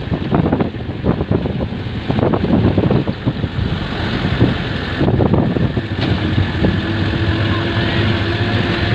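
Motor vehicle engine running steadily, heard from on board, with rough, uneven noise over it in the first few seconds.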